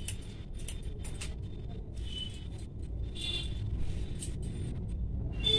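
Hair-cutting scissors snipping through long straight hair in short, sharp clicks, with comb strokes, over a steady low rumble.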